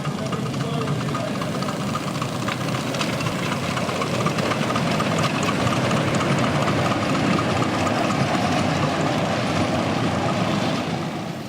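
Miniature railway locomotive running. It grows louder over the first few seconds, holds steady, then falls away sharply near the end.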